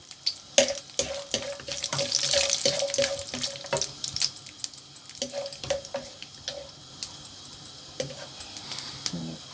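Cashew nuts and whole spices frying in hot sesame oil in a nonstick pan: a sizzle with sharp crackles, and a wooden spatula scraping and tapping the pan as they are stirred. The sizzle is loudest in the first few seconds and then dies down.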